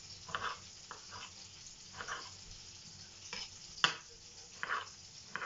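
Kitchen knife slicing cherry tomatoes on a wooden cutting board: about eight irregularly spaced knocks of the blade through the tomato onto the board, the sharpest a little before four seconds in.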